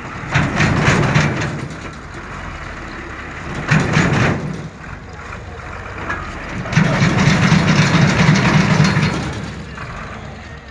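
Heavy dump truck's engine revving in surges as the truck churns forward through mud. The longest and loudest push starts about seven seconds in and eases off near the end.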